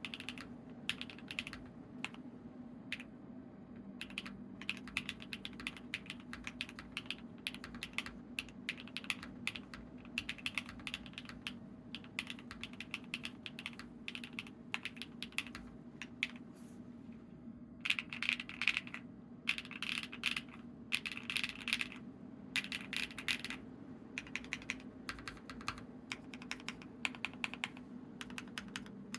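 Monsgeek M2 mechanical keyboard with lubed Z1 switches, a PC plate and dye-sub PBT keycaps being typed on: a continuous patter of keystrokes. Louder, quicker bursts of typing come about two-thirds of the way through.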